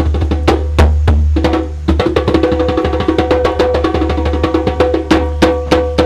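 Background music with rapid clicking percussion over held tones and a steady low bass.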